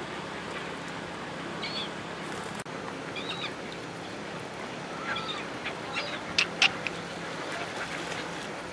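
Waterbirds (ducks and gulls) giving a few short, scattered calls over a steady background hiss. Two sharp clicks close together, about two thirds of the way in, are the loudest sounds.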